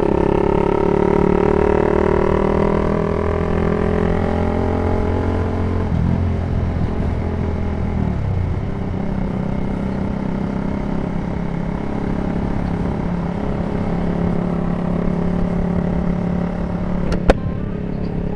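Motorcycle engine running while riding. Its pitch eases down over the first six seconds or so, drops again about eight seconds in, then holds steady. A single sharp click comes near the end.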